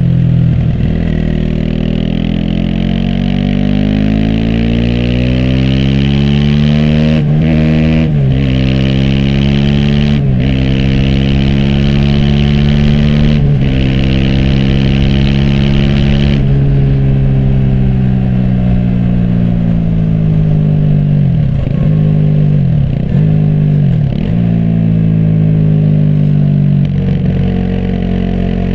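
Aprilia SX 125's single-cylinder four-stroke engine with an Arrow racing header and slip-on exhaust, under way: it climbs through the revs with four quick gear changes, each a brief dip in pitch. About halfway through it comes off the throttle and the pitch falls as it slows on the engine, dipping again three times near the end.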